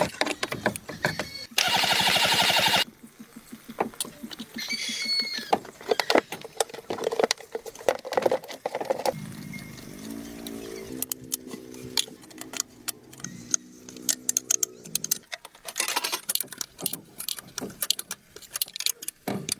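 Metal tools and car parts clicking, clinking and knocking during hands-on repair work on a car, with a loud buzz lasting about a second near the start and a steady low hum for a few seconds in the middle.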